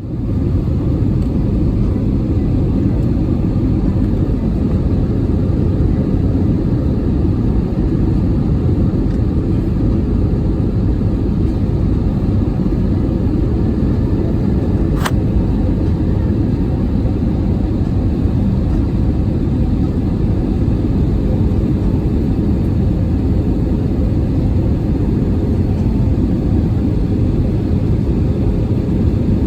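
Steady low rumble of an Airbus A320's engines and airflow heard inside the passenger cabin, with a single sharp click about halfway through.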